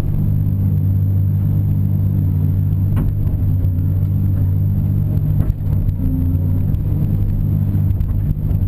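CAT 330 hydraulic excavator's diesel engine running steadily under working load, heard from inside the cab, as the boom and bucket dig and dump dirt. A single sharp knock comes about three seconds in.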